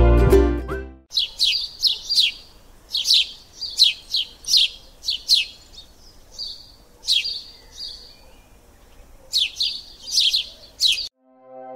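Birds chirping: short, high, downward-sweeping chirps in quick clusters, after a tune with plucked strings ends about a second in. The birdsong cuts off abruptly near the end, and a sustained ambient synth chord begins.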